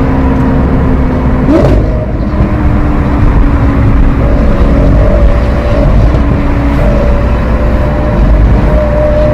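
Lamborghini Aventador SV's 6.5-litre V12 through a Capristo exhaust, running loud at fairly steady revs, with a short rise in pitch about a second and a half in.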